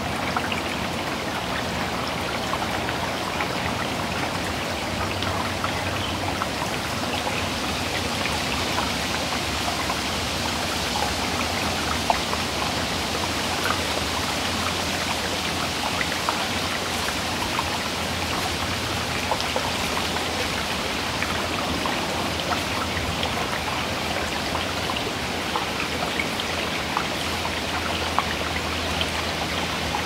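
Small creek running over rocks: a steady rush of water with many small sharp splashes and drips on top.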